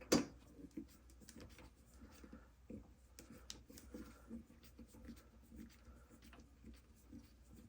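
Faint handling noises from disassembling a Line 6 FBV3 pedal: one sharp click right at the start, then small scattered clicks, taps and scrapes of a screwdriver and plastic housing parts.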